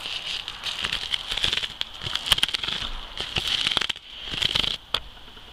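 The metal foil and paper winding of an old paper capacitor being pulled off its roll, crinkling and crackling in a rapid run of small clicks. The crackling breaks off about four seconds in, comes back briefly, and ends with a single sharp click.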